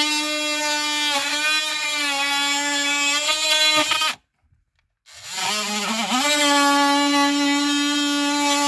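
Oscillating multi-tool running as it cuts into the plastic dash trim around the radio opening, a steady high motor hum whose pitch dips briefly under load. It cuts off about four seconds in, then starts again a second later, rising in pitch as it winds back up to speed.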